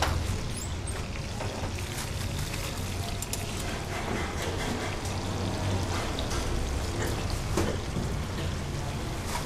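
Steady hissing kitchen noise with a low hum, broken by a few light clinks of metal tongs on a steel counter.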